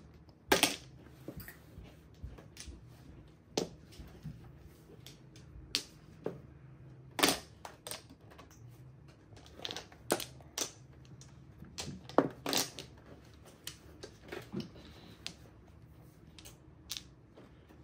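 Mahjong tiles clacking on the table as they are played: a dozen or more sharp, irregularly spaced clicks, some of them loud.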